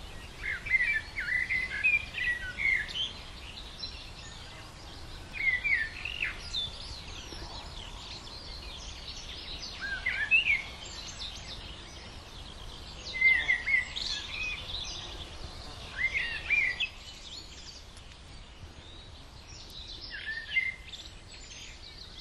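Songbirds singing: a loud warbling song phrase, about a second long, repeats every three to four seconds, with fainter chirps from other birds behind it.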